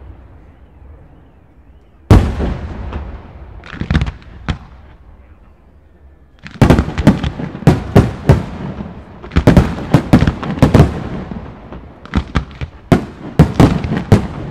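Aerial firework shells bursting with loud, echoing bangs: one big bang about two seconds in, a few more around four seconds, then from about halfway a rapid barrage of many bangs.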